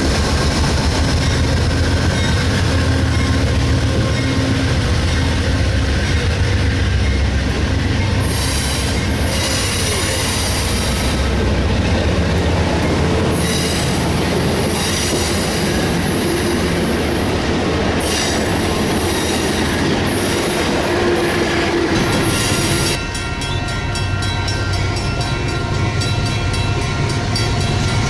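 A train rolling past close by, with a steady heavy rumble. A high wheel squeal comes and goes through the middle. From about 23 seconds in there is a fast, regular clicking of wheels over the rail.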